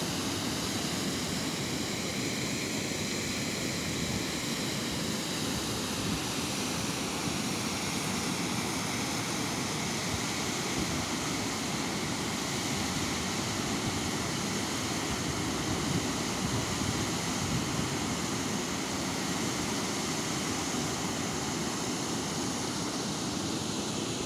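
Water pouring over the crest of an overflowing check dam weir and churning in the pool below: a steady, even rushing sound.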